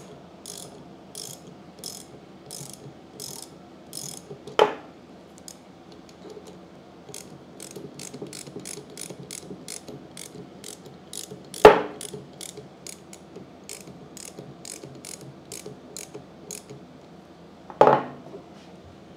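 Socket ratchet clicking at about two clicks a second as it runs a plunger retainer back down onto a ceramic plunger of a CAT 3DX29GSI pressure washer pump, threads freshly coated with blue Loctite, pausing briefly after the first few seconds. Three sharp knocks stand out, the loudest near the middle.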